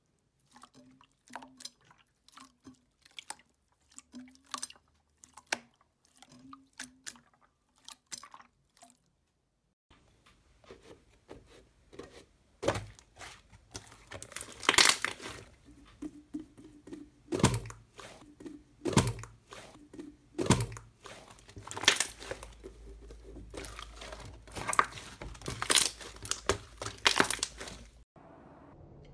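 Hands pressing and kneading slime, making sticky squelching clicks and pops as trapped air is squeezed out. Clear slime gives a slow regular pop about every second and a half; after a short pause, a thicker blue slime gives louder, denser popping and crackling.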